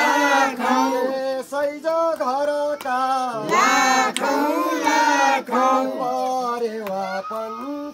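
Voices singing a Nepali Deusi song in short chanted phrases that follow one another without a break.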